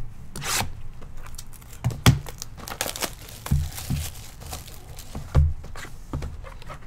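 Plastic shrink wrap crinkling and tearing as it is stripped off a sealed trading card box, with a few thumps of the cardboard box being handled on the table.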